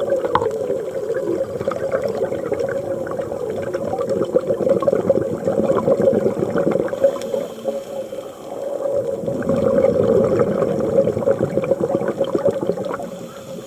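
Scuba diver breathing through a regulator underwater, the exhaled air bubbling and gurgling past the microphone in long bursts, with a short lull about two-thirds of the way through.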